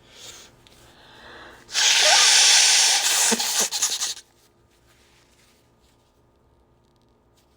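A congested nose being blown hard into a tissue during a head cold: one long, loud, wet blow that breaks up into short sputters and a brief honk near the end.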